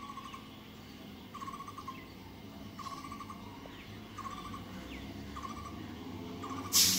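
A bird repeating a short pulsed call about every second and a half, over the low rumble of an approaching EMU train that slowly grows louder. A sudden loud hiss comes just before the end.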